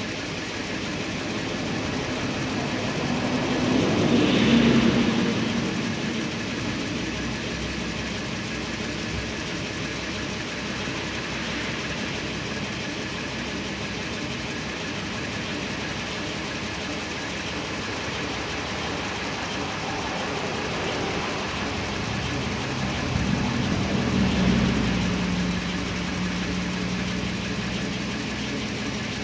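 Detroit Diesel 8V71 naturally aspirated two-stroke V8 in a 1974 Pierce fire truck, running just after a cold start. The engine note swells twice, about four seconds in and again near the end.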